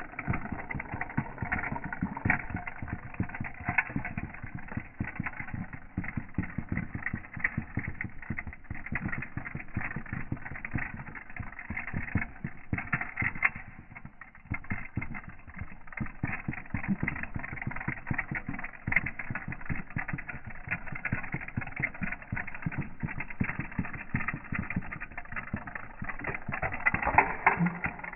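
Kikkerland "Cranky" wind-up toy's clockwork motor running down, a fast, dense clicking rattle from its spring-driven gears and wire legs on a plastic desk top, louder for a moment near the end.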